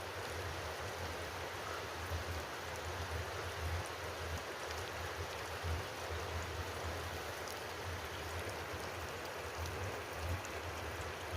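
Steady hiss of water, falling rain or a rushing stream, with irregular low buffeting underneath.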